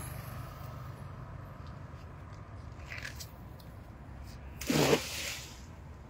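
A cast net is thrown, and its weighted rim hits river water with one short splashing rush about five seconds in. Before that come faint scrapes and rustles of the net being handled, over a steady low hum.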